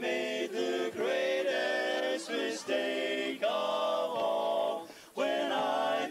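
Male barbershop quartet singing a cappella in close four-part harmony: a string of held chords with short breaks between them and a brief pause near the end.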